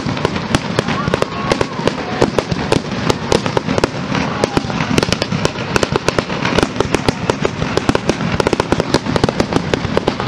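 Aerial fireworks shells bursting in a dense barrage, several sharp bangs a second overlapping one another over a continuous low rumble.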